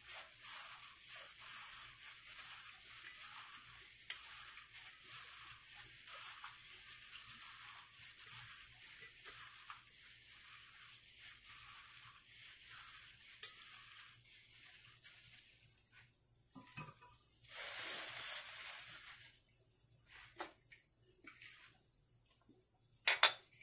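Lily petals boiling in a pot of water on a gas burner, a steady bubbling hiss that dies away about fifteen seconds in. It is followed by a burst of rustling and handling noise, and a sharp clink near the end as the steel shrimp bowl is set down.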